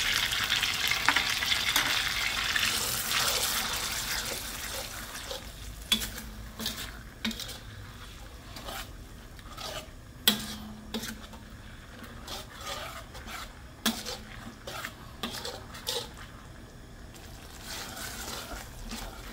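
Chilli sambal sizzling in a hot stainless-steel wok just after tamarind juice is added, the hiss fading over the first few seconds. Then a metal spatula scrapes and knocks against the wok as the sauce is stirred, with sharp clicks now and then.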